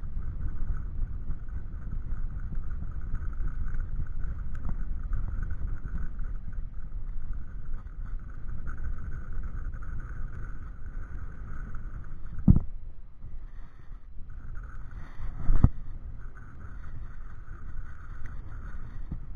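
Wind buffeting the microphone on an open kayak as a steady low rumble, with two sharp knocks about three seconds apart, a little past the middle.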